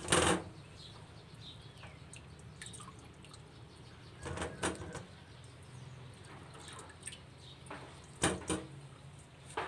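Palmyra palm fruit being rubbed clean by hand in water in a stainless steel bowl: soft sloshing and dripping, with a few sharper splashes or knocks against the bowl at the start, about halfway, and twice near the end.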